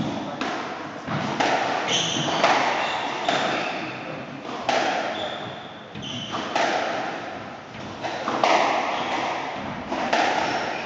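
Squash rally: the ball cracking off rackets and the court walls about once a second, with short high squeaks of court shoes on the wooden floor.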